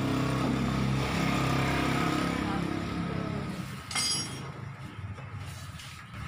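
A motor vehicle's engine running steadily in the background, dropping away about three and a half seconds in. About four seconds in comes a single short metallic clink with a brief high ring.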